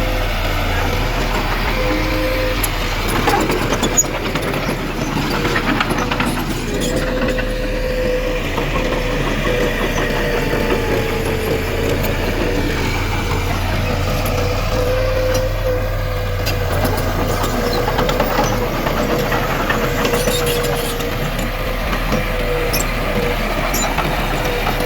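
Diesel engine of heavy earthmoving machinery running steadily, with a wavering whine and scattered clanks and clicks.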